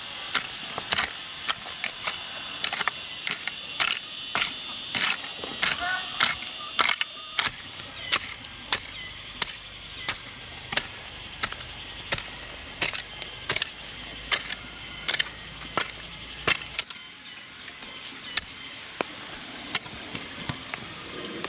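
Repeated sharp knocks or taps, about one or two a second, over a steady high buzz; the knocks thin out near the end.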